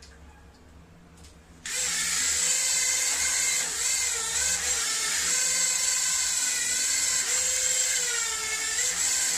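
Eachine E015 toy drone's small electric motors and propellers whining at high pitch as they drive it in boat mode. The whine starts suddenly about a second and a half in, and its pitch rises and falls as the throttle changes.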